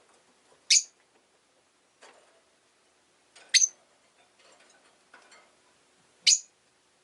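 Rosy-faced lovebird giving three short, sharp, high-pitched chirps about three seconds apart, with faint clicks and scratching between them.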